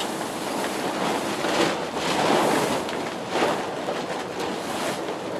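Plastic tarpaulin rustling as it is pulled and tucked over a boat's cabin, swelling louder about two seconds in.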